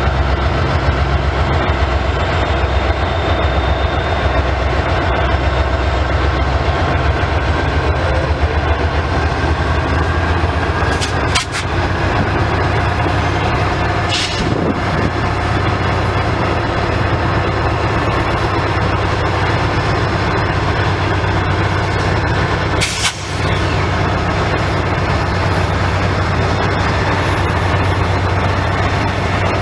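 Diesel locomotive running steadily at low idle with a deep rumble while it pumps air into the brake line of the stalled train it has coupled onto. Brief sharp sounds break in three times.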